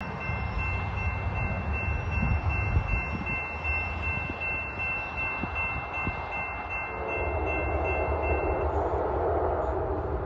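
Railroad grade crossing warning bell ringing as the crossing gate arm comes down, falling silent about nine seconds in once the gate is down. Wind rumbles on the microphone, and from about seven seconds in the sound of the approaching train grows.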